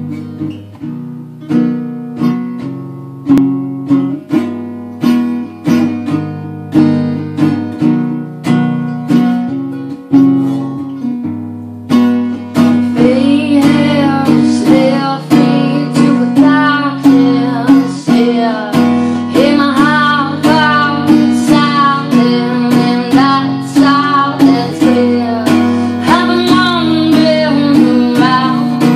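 Acoustic guitar played in a steady, evenly repeating strummed pattern. A woman's singing voice comes in about twelve seconds in and carries on over the guitar.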